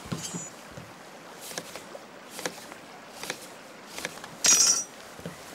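Kitchen knife slicing a lemon on a wooden cutting board: a few light knocks of the blade on the board, about one a second, then a louder, brief scraping cut a little over four seconds in.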